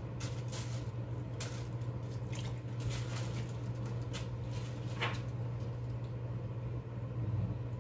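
Short, irregular bursts of wet squelching and plastic-bag rustling as beef intestine is turned inside out over a stick into a plastic bag, mostly in the first five seconds. A steady low hum runs underneath.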